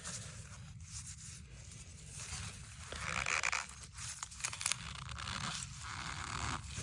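Handling noises from hands working on a coaxial cable splice: short scrapes and rubbing, with a louder rasping scrape about three seconds in and another near the end.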